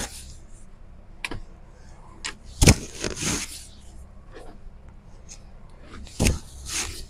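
Jackets being handled: a few sharp knocks, the two loudest each followed by a short rustle of fabric or packaging.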